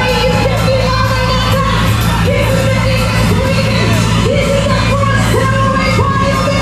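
Loud pop music with singing over a steady bass line.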